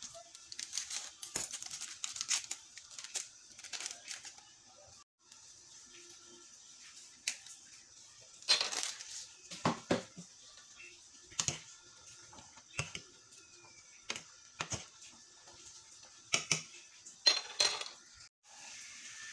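Pot of pork sinigang broth simmering on a gas stove: a steady hiss with scattered sharp pops and clicks, thickest in the first few seconds.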